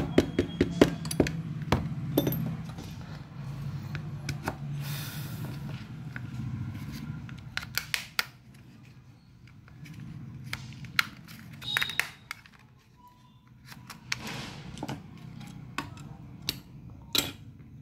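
Irregular sharp clicks, snaps and taps from a Jio Phone F220B's plastic housing being pried apart with a thin opening tool, with tools and parts knocking on the bench.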